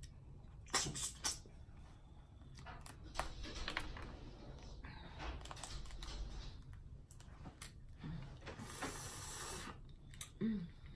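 Close-up eating sounds of crawfish being peeled and eaten by hand: scattered small shell cracks and clicks, soft sucking and chewing, with a brief high hiss about nine seconds in.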